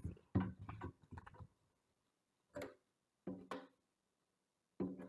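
Paper note cards being picked up and set down on a glass tabletop: small clusters of light taps and rustles with short quiet gaps between them.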